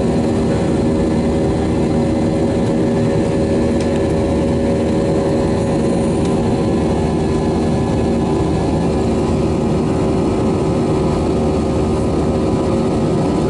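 Cabin noise inside an Airbus A320-200 climbing after takeoff: its wing-mounted turbofan engines and the rushing airflow, heard from a window seat beside the engine as a loud, steady rush with a constant low hum of several tones.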